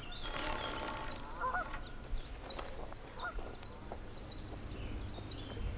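A goose honking in the first second or two, followed by small birds chirping.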